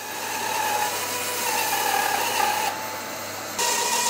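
Bandsaw running and cutting through a glued-up block of plum wood and maple: a steady machine noise with a whine near 1 kHz. It grows louder over the first second and thins briefly about three seconds in.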